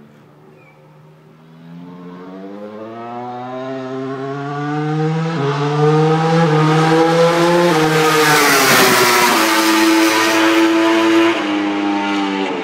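Ducati MotoGP racing motorcycle accelerating hard down the straight. The engine note climbs and drops back at each upshift as it gets steadily louder, and it is loudest as it passes about eight to nine seconds in.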